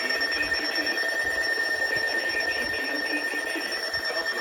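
Weather radio alarm going off: a steady, high electronic alert tone that signals an incoming weather warning.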